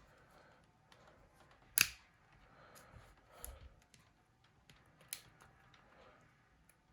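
Small clicks and faint scraping of a tool prying at a Nokia E71's front panel, with a sharp click about two seconds in and another about five seconds in; the panel is not coming free, seemingly held by glue.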